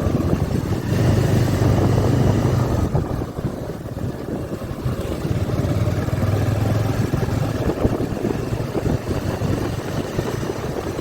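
Motorcycle engine running while riding, with wind rushing over the microphone; the engine sound eases off for a moment about three seconds in, then picks up again.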